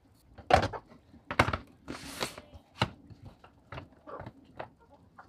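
Sharp knocks and clicks from a plastic feed bucket being handled, with a short rustling hiss of dry grain, cracked corn scratch, spilling into it about two seconds in.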